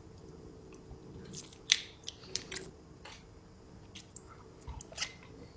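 Quiet mouth sounds of someone eating, with a few sharp clicks scattered through.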